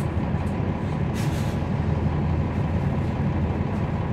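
Cabin sound of a 2011 NABI 416.15 (40-SFW) transit bus, its Cummins ISL9 inline-six diesel running with a steady low rumble. A brief air hiss comes about a second in.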